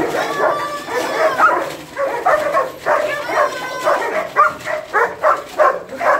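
Several German Shepherds barking over one another in excitement, with drawn-out whining calls among the barks. Near the end comes a run of quick barks, about three a second.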